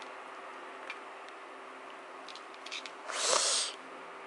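Dachshund biting the thin wooden play stick, its teeth scraping the wood in one short rasp about three seconds in, with a few light clicks just before.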